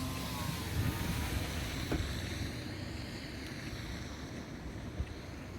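Steady rushing noise of wind and traffic on snowy roads, heard through an open car window.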